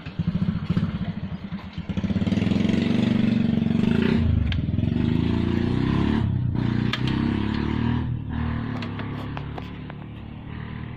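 A motor vehicle's engine running close by, with fast even firing pulses at first, then a steady hum that gradually fades away near the end.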